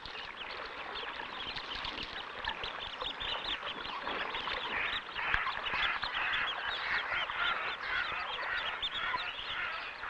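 A brood of mallard ducklings peeping continuously: many short, high calls overlapping in a dense, busy stream.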